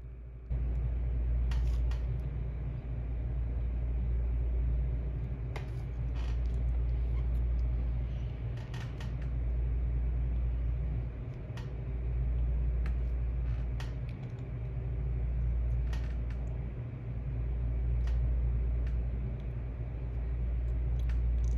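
A steady low rumble that swells and eases every few seconds, with a few faint clicks scattered through it.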